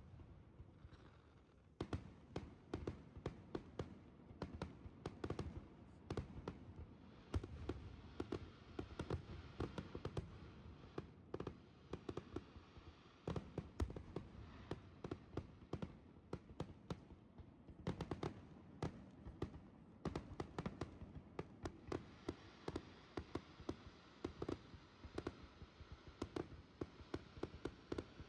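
Aerial firework shells bursting in a rapid, near-continuous string of sharp bangs and crackles, often several a second, with louder reports scattered through it.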